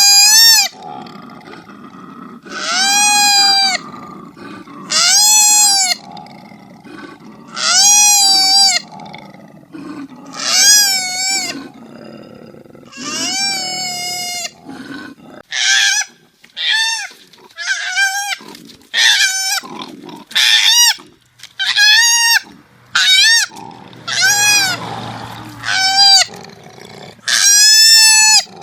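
Koala giving repeated high cries, each rising then falling in pitch: about six long cries a couple of seconds apart, then a quicker run of shorter cries about one a second.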